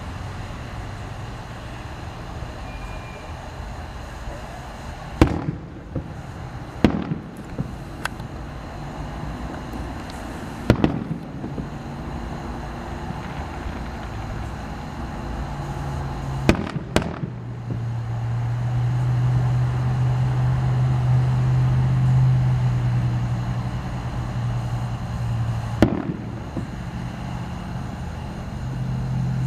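Fireworks going off: about seven sharp reports spaced several seconds apart, two of them close together, over a steady low hum that swells louder in the second half.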